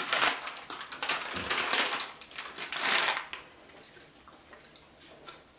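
Rustling and crackling in several bursts, then a few light clicks, as pizza toppings are handled and put onto pita bread.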